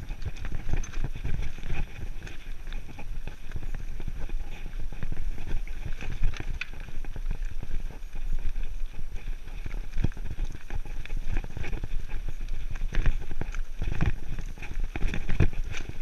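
Mountain bike riding over a rocky dirt trail: tyres crunching on stones and gravel, with a constant run of rattles and knocks over a low rumble, and a few harder jolts near the end.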